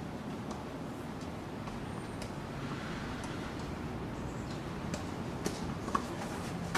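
Steady outdoor background noise from open tennis courts, with a few faint tennis ball taps about half a second apart near the end.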